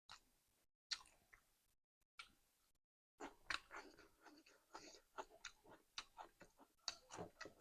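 Close-up chewing and wet mouth sounds of a person eating meat curry with rice. There are a couple of separate bites in the first seconds, then steady rapid chewing from about three seconds in.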